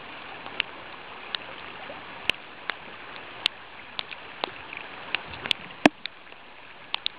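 A river flowing steadily, with sharp irregular ticks of raindrops striking close to the microphone, about twenty of them.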